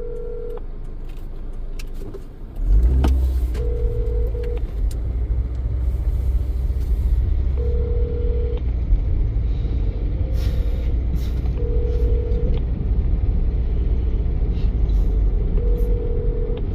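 Telephone ringback tone as a call rings unanswered: a one-second tone repeating about every four seconds, over a low steady rumble that starts about three seconds in.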